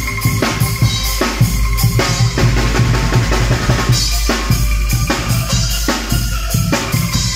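Street angklung ensemble playing music, led by a steady drum beat with a deep bass drum under pitched bamboo angklung notes.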